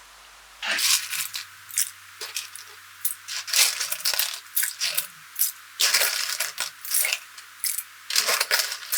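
Loose plastic keycaps from a Logitech G213 keyboard clattering into a jug in handfuls, an irregular run of sharp clicks that starts about a second in.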